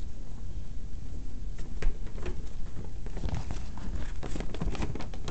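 A folded paper leaflet of toy advertisements being handled and unfolded: rustling and crackling paper, the crackles coming thicker from about three seconds in.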